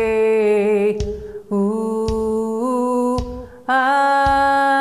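A cappella voices singing a Portuguese worship song in several harmonised parts, holding chords that change every second or so. A soft low thump marks roughly each beat.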